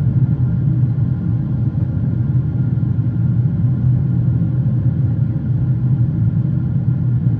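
Boeing 777 cabin noise in flight: a steady low rumble of engines and rushing air, heard from inside the cabin at a window seat.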